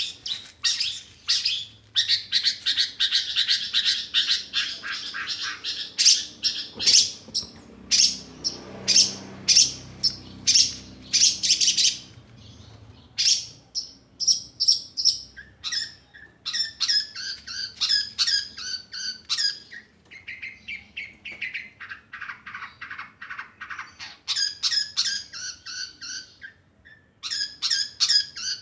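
Long-tailed shrike (cendet) singing: long runs of rapid, harsh chattering notes, many to the second, broken by a few short pauses.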